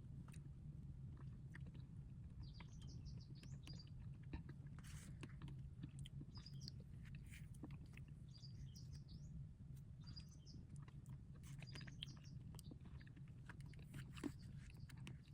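Faint small-bird chirps, in short clusters several times, over a steady low hum, with scattered faint clicks.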